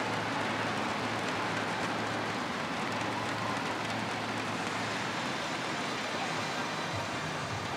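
Steady splashing of several swimmers racing butterfly, a continuous wash of water noise.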